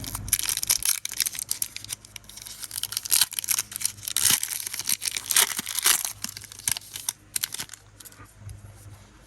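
Foil Pokémon booster pack torn open and its crinkly wrapper handled, a run of tearing and crackling rustles that dies down near the end.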